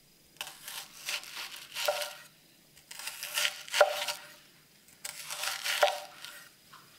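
Kitchen knife slicing slowly through a red onion, a crisp crunching as the blade cuts the layers, each stroke ending in a knock of the blade on an end-grain wooden cutting board; three slices about two seconds apart.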